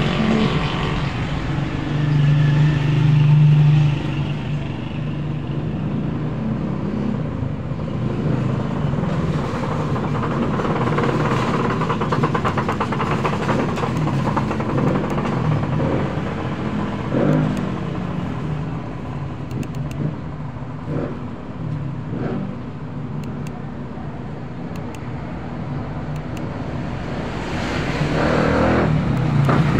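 Motor-vehicle traffic passing by: a continuous rumble of engines and road noise that swells briefly a couple of seconds in and again near the end.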